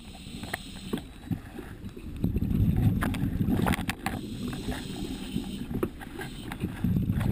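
Diver's breathing gear underwater: exhaled air bubbling past the microphone in low rumbling surges, about two seconds in and again near the end, with a hiss of air between them and scattered small clicks and knocks.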